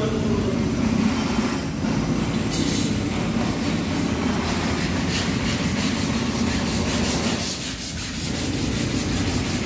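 Steady scraping and rubbing noise, with a fast, regular scratching rhythm in the second half.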